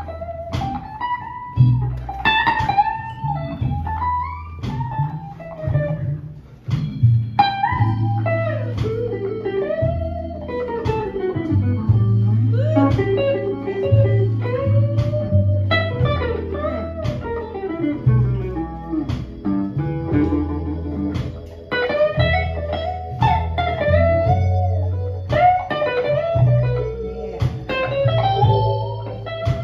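Live blues band playing: an electric guitar takes the lead with bending, sliding notes over steady bass notes and drums.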